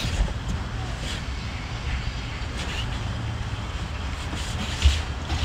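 Steady low rumble of outdoor background noise, with faint scattered clicks of hands handling shellfish and one soft thump near the end.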